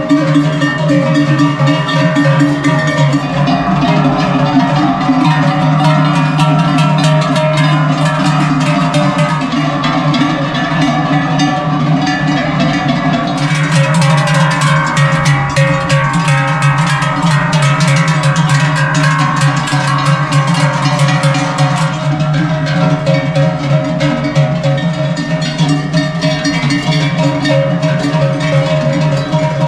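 Many cattle bells clanging together without a break, a dense metallic ringing over steady low bell tones, as a decorated herd is driven down from the alpine pasture.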